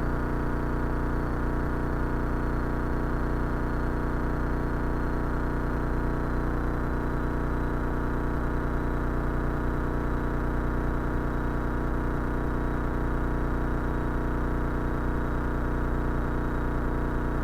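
Cessna 172's piston engine and propeller droning steadily in level flight, with no change in pitch.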